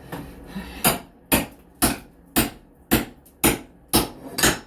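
Hammer blows during demolition: eight sharp strikes in a steady rhythm of about two a second, beginning just under a second in.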